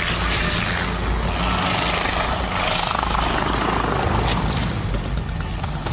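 Helicopter rotor and turbine noise, a continuous loud rumble and whir that holds steady throughout.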